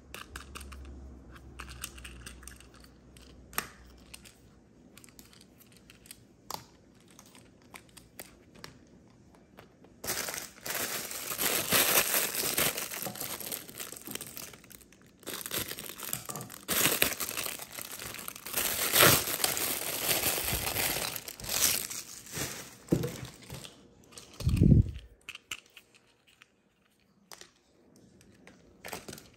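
A clear plastic bag crinkling and rustling loudly as a hand digs small plastic toy figures out of it. Before that there are only faint light clicks as the figures are handled, and near the end there is a dull thump.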